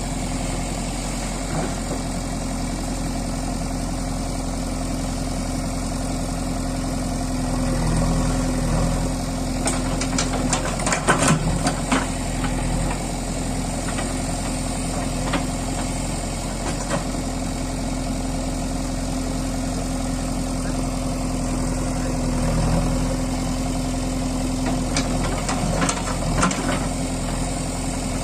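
JCB 3DX Super backhoe loader's diesel engine running steadily, swelling briefly under load about eight seconds in and again past twenty seconds. Clusters of sharp knocks come around eleven seconds in and again near the end.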